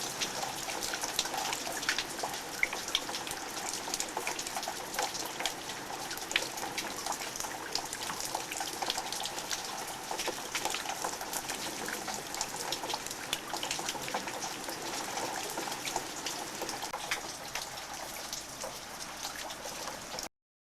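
Steady rainfall with water trickling and dripping, many sharp drop ticks over an even hiss. It cuts off suddenly near the end.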